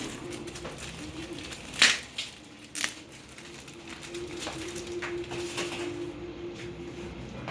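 Handling noises while unpacking a parcel: a few sharp clicks and knocks, the loudest about two seconds in, over a steady low hum that stops near the end.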